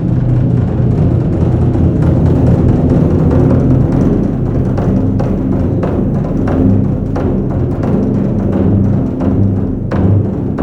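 Japanese taiko drums played in a loud, fast stream of strokes with a deep rumble beneath.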